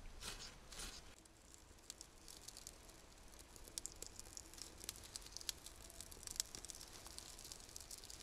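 Faint crackling and scattered small clicks of tinder catching fire under a small log fire lay, lit with a ferro rod, the crackle growing busier in the second half.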